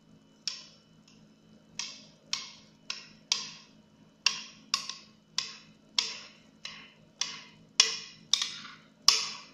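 A series of about fifteen sharp knocks on the mixing bowl, roughly two a second and unevenly spaced, each ringing briefly, as the thick cream filling is shaken out of it.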